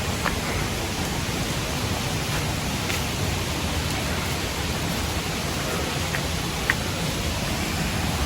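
Steady rushing of falling water from Leke Leke Waterfall, a constant even roar, with one brief click about seven seconds in.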